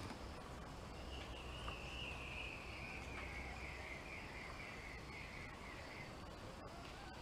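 Faint insect call: a thin, high-pitched pulsing trill that slowly falls in pitch over about five seconds, over a low steady background rumble.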